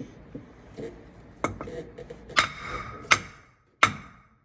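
Hammer blows on a bus drive shaft's universal joint, metal striking metal with a short ring after each, about five strikes less than a second apart, driving a bearing cap out of the yoke.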